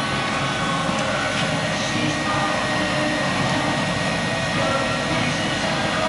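SIKAMA Falcon 12 reflow furnace running at its 250°C test temperature: a steady fan and blower noise with a faint, even high whine.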